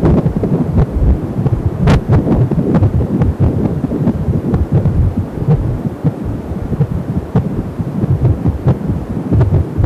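Unborn baby's heartbeat picked up by an AngelSounds home fetal Doppler: a rapid, throbbing whoosh-pulse through the device's speaker. There is a brief crackle about two seconds in.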